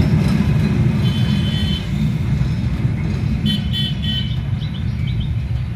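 Bangladesh Railway intercity train rumbling along the track, slowly fading as it moves off. Short high-pitched chirping tones come about a second in and again midway.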